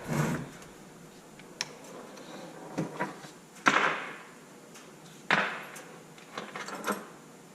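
Metal hand tools clinking and clattering on a workbench: several separate knocks and short rattles, the loudest about a third of the way in and again past the middle, as a tool of a different size is picked out.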